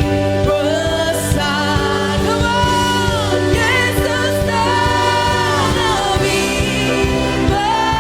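Christian praise song played by a worship band: a sung melody of long held notes that slide between pitches, over steady bass and regular drum beats.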